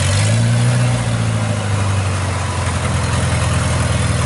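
Engine of a rubber-tracked rice carrier running steadily while it moves under a heavy load of rice sacks, with a brief rise and fall in pitch in the first second.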